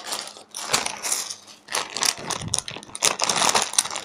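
Plastic bag and a squishy toy's clear plastic wrapper crinkling and rustling as they are handled, in irregular bursts.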